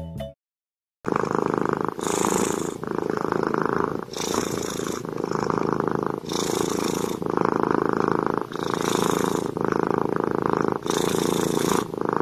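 Ginger kitten purring as its head is stroked: a steady, rough purr that swells and eases with its breathing about every two seconds. It starts about a second in, after a brief silence.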